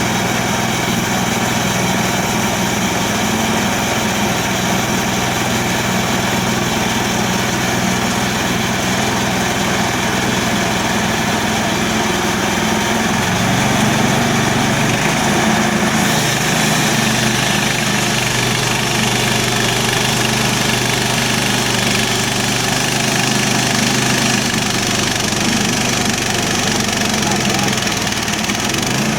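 Harbor Freight portable bandsaw mill's gas engine running steadily, most likely while sawing an elm log. Its pitch steps up slightly about 13 seconds in.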